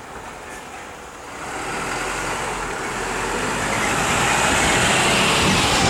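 A vehicle approaching, its steady noise rising from about a second in to its loudest near the end.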